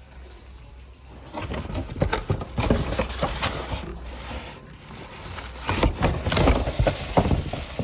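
Hands rummaging through a cardboard box and its packaging: irregular rustling and scraping with small knocks, starting about a second in.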